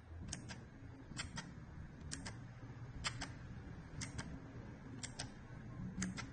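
Mechanical keyboard key pressed and released about once a second, each stroke a pair of sharp clicks close together.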